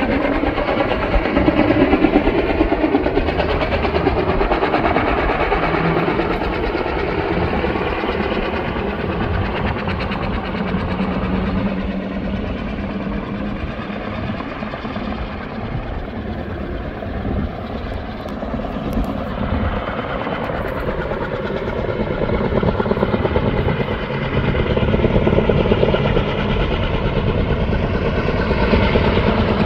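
Helicopter running continuously, its rotor and engine noise steady, growing somewhat fainter in the middle and louder again after about twenty seconds.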